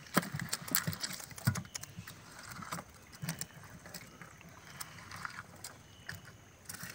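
Hands sorting freshly netted shrimp on a sheet in the bottom of a wooden boat: light rustling with scattered sharp clicks and taps, busiest in the first three seconds and sparser after.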